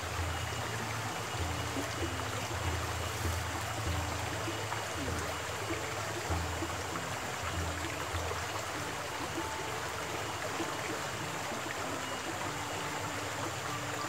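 Small, fast mountain stream flowing steadily.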